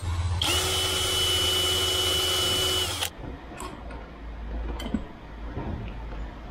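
Cordless drill-driver running at a steady speed for about three seconds while fastening transom wheels to the raft's transom, then cutting off. A few light clicks of hand work on the metal wheel bracket follow.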